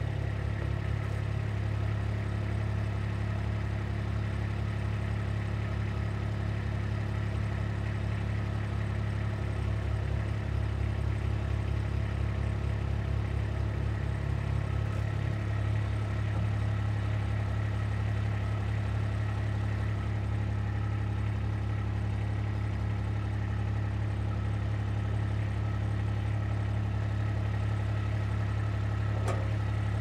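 Kubota RTV utility vehicle's engine idling steadily, with a slight change in its note about halfway through.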